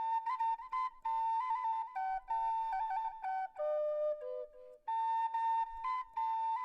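Solo flute playing a slow melody of held notes with small steps and turns, falling to lower notes midway, then returning to the higher note.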